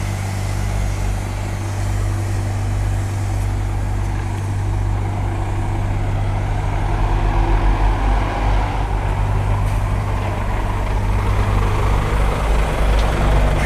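Scania new-generation semi-truck's diesel engine running as the tractor-trailer drives slowly at close range, a steady low drone. It eases a little mid-way and grows louder again near the end as the truck pulls up close.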